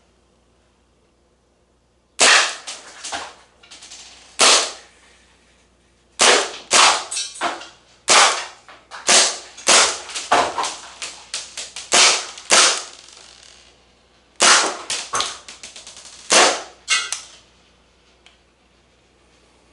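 Marzen Walther PPK gas blowback airsoft pistol firing. Two single shots come first, then a quick string of about a dozen shots, a short pause, and a last group of several shots. Each shot is a sharp crack with the clack of the slide cycling just after it.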